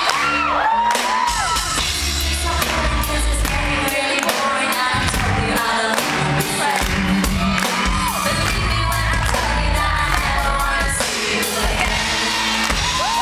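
Live pop band playing with a woman singing lead vocals into a microphone over a steady drum beat and bass. A few high whoops from the crowd rise above the music about a second in and again near the end.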